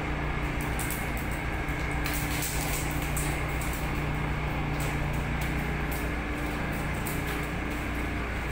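Steady low hum of a ship's machinery heard on deck, with scattered light clicks and taps.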